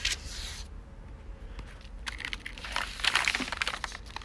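Handling noise: rustling and crinkling with a few light clicks as a paper sheet and a plastic storage case are moved about, in two spells, a short one at the start and a louder one about halfway through.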